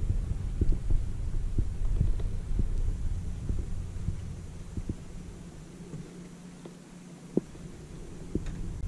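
Low rumble of wind buffeting the microphone, easing off for a moment about two-thirds of the way through and then building again, with scattered faint taps and one sharper tap.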